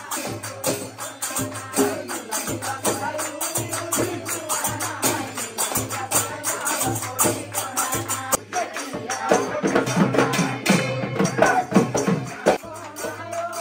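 Live Assamese folk music for a circle dance: a group singing to a fast, steady beat of drums and jingling hand cymbals, with the singing louder in the second half.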